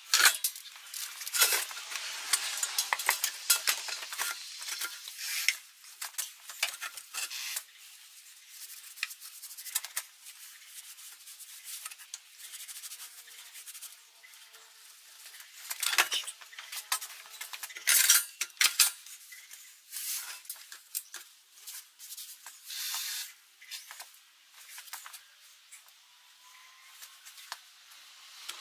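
A cloth rag rubbed and wiped over the metal of an air compressor's tank and mounting plate in irregular scrubbing strokes, with a few louder scrapes.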